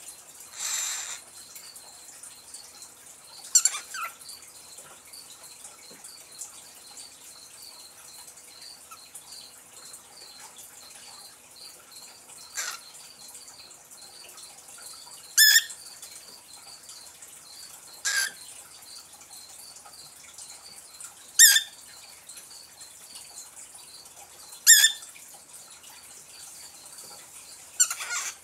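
Lutino cockatiel giving short, sharp chirps, each dropping quickly in pitch, seven in all and spaced a few seconds apart after the first. A brief hissy burst about a second in.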